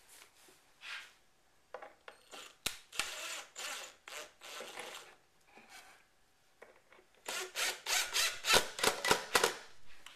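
Wooden panel scraping against the boards as it is pushed into place, then a cordless drill driving screws into the wood in a string of loud, choppy bursts near the end.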